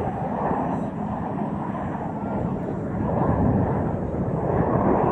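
Jet noise from the Snowbirds' formation of CT-114 Tutor jets flying past, a steady rushing sound that swells slightly about three seconds in.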